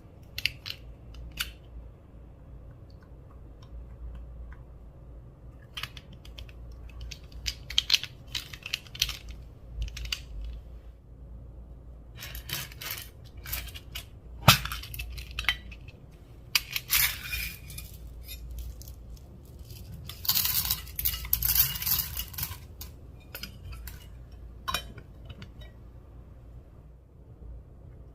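Clicks, clinks and crackles of small hard plastic and metal objects and containers being handled while mixing slime, with one especially sharp click about halfway through and a denser crackling run about two thirds of the way in.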